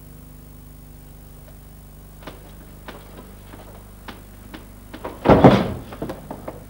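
A few short, sparse plucked notes, then one loud strummed chord about five seconds in that rings briefly, over a steady low electrical hum.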